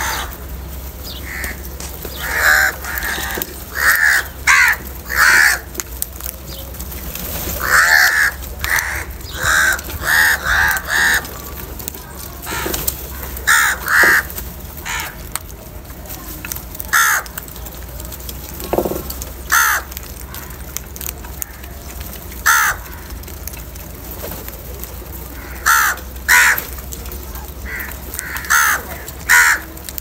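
Crows cawing: many short, harsh calls, singly and in quick bunches of two or three, over a steady low hum.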